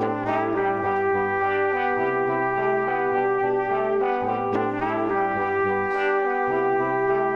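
Background music with held notes over a bass line that changes note about every two seconds.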